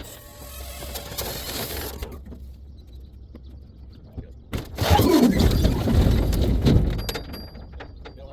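Firewood logs tumbling and knocking as they slide out of a dump trailer, loudest about five to seven seconds in.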